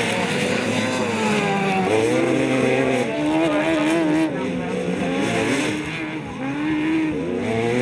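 Racing ride-on lawnmower engines, the revs rising and falling again and again, with more than one engine heard at times.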